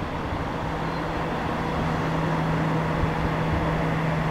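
Kobelco SK350 excavator running, with a steady hum that comes in about half a second in, and a slight rise in level from about two seconds.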